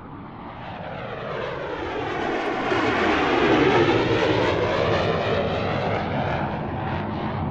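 Airplane flying overhead: its engine noise swells to a peak about halfway through, then slowly fades, with its tone sweeping down and back up as it passes.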